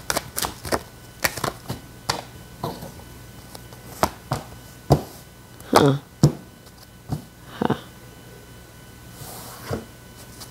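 A deck of oracle cards being shuffled by hand, with crisp, irregular clicks and flicks of the cards, then individual cards drawn and laid down on a cloth-covered table.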